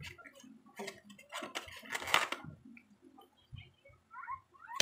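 Clicks and crinkling of a styrofoam takeout container and plastic being handled, with one longer, louder rustle about two seconds in. Near the end a few faint, short, high-pitched calls start.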